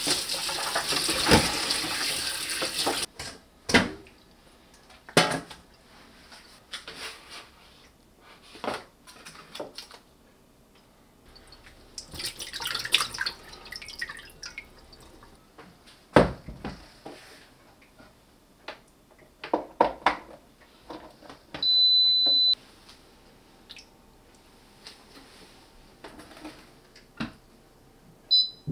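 Kitchen tap running onto vegetables in a stainless steel bowl, stopping about three seconds in, followed by scattered clinks and knocks of metal pots and bowls. A steady electronic beep sounds for about a second around two-thirds through, and a quick run of beeps near the end comes from the electric multicooker's control dial being turned.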